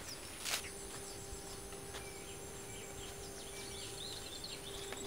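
Birds chirping and calling in short, scattered notes over a steady outdoor background with a faint high whine and a low hum. A single sharp click about half a second in.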